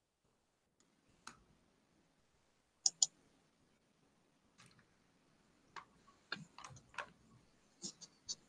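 A clear plastic water bottle handled and drunk from: a few scattered sharp clicks and crackles, with a louder pair of clicks about three seconds in.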